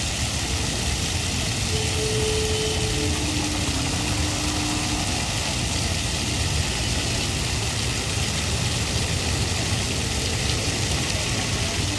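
Water jets of a lit fountain splashing down into the basin: a steady, unbroken rush of falling water with a deep rumble underneath.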